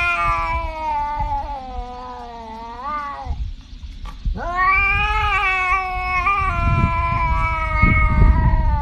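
Tabby cat yowling in two long drawn-out calls: the first bends upward in pitch and breaks off about three seconds in, and after a gap of about a second the second long call starts and keeps going.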